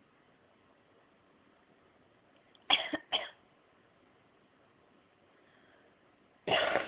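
Coughing: two short coughs in quick succession about three seconds in, then a louder cough starting near the end.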